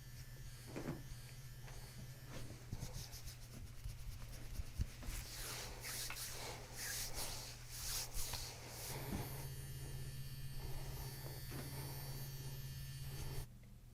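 Soft rubbing and brushing sounds, busiest between about five and nine seconds, over a steady low hum that grows stronger about nine seconds in; everything cuts off abruptly near the end.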